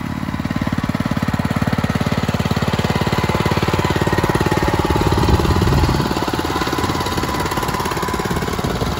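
Small vintage John Deere tractor engine running steadily as the tractor drives along, with rapid, even firing pulses. It grows briefly louder about five seconds in.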